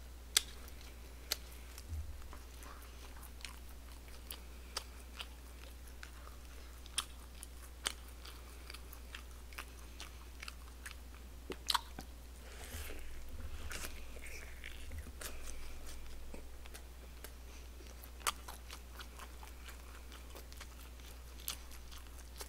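Close-miked eating: biting and chewing a hand-held piece of barbecued pig's trotter (jokbal), with sharp wet clicks and smacks scattered throughout and a stretch of louder chewing around the middle. A steady low hum runs underneath.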